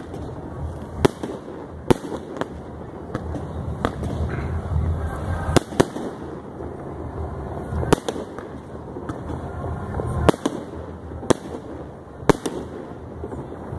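Fireworks display: aerial shells bursting in about a dozen sharp bangs at irregular intervals, sometimes two in quick succession.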